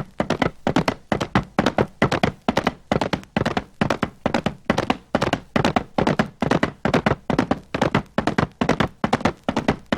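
Horse hooves galloping on hard ground: clusters of quick hoof strikes repeating steadily about twice a second, as a sound effect.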